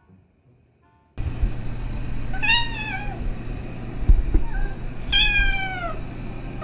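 Kittens meowing: two drawn-out meows a little over two seconds apart, each rising then falling in pitch, the second one longer, with a short chirp and a soft thump between them.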